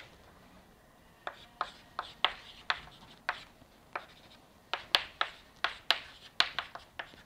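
Chalk tapping and scraping on a blackboard as a formula is written: a quick, irregular run of short, sharp clicks that starts about a second in.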